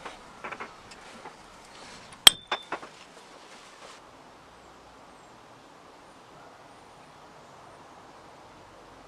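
Clicks and taps of the restored metal pipe cutter being handled, with one sharp ringing metal clink a little over two seconds in; after about four seconds only a faint steady hiss remains.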